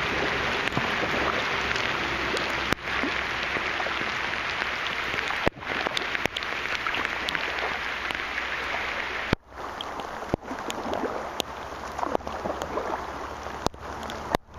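Heavy rain falling on the river, a dense steady hiss, broken by several abrupt cuts. From about nine seconds in it is quieter and more uneven.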